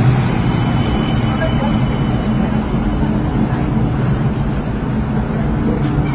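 CAF light rail tram pulling in alongside the platform: a steady low electric hum from the tram, with a brief thin high whine about half a second in.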